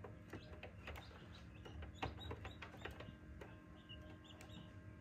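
Faint peeping of newly hatched chicks inside a tabletop egg incubator, with scattered soft taps and scuffles and a steady low hum under them.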